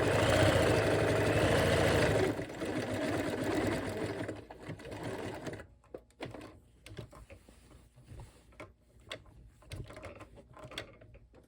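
Bernina 1130 sewing machine stitching a decorative stitch, its motor whine rising and falling with speed. It slows after about two seconds and stops about five seconds in, leaving a few light clicks and taps.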